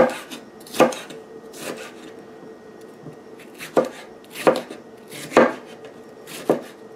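Kitchen knife chopping tomato pieces on a wooden cutting board: about seven separate sharp knocks of the blade hitting the board, irregularly spaced, with a pause of nearly two seconds in the middle.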